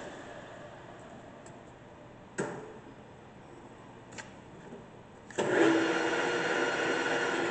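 Acer Dynamic 1340G gap-bed engine lathe: the headstock runs down quietly, and there are a couple of sharp clunks as controls are shifted. About five seconds in, the spindle starts up in high range with a steady, much louder gear whine and motor hum.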